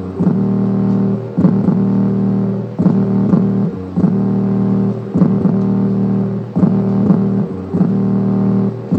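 Music played through the 3-inch subwoofer of an Intex IT-890U Mini 2.1 desktop speaker on its own, a bass-heavy pattern repeating about every one and a half seconds. The bass is there but distorting a lot.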